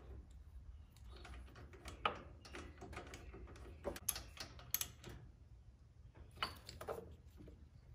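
Faint clicks and clinks of a hand ratchet and socket working on an engine spark plug, with a few sharper clicks spread through.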